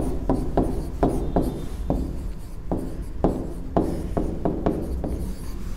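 Pen strokes on an interactive whiteboard: a string of short taps and scrapes as words are handwritten and underlined, over a faint steady low hum.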